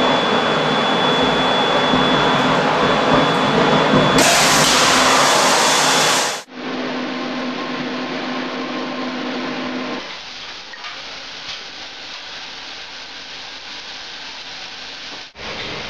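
Loud steady rushing of a pan fire under a range hood, with a thin steady high tone, then a louder hiss of about two seconds from about four seconds in, the wet chemical suppression system discharging onto the fire. The sound cuts off abruptly, followed by a quieter rushing with a low steady hum that stops about ten seconds in.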